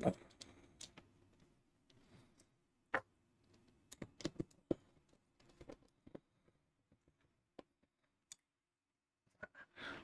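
Hand-wiring noises: a soft knock at the start, then scattered light clicks and taps as wires with crimped terminals are handled and fitted to a circuit breaker's terminals.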